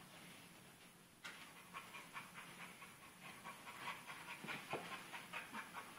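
A pit bull panting quickly and evenly, several breaths a second, faint, starting about a second in.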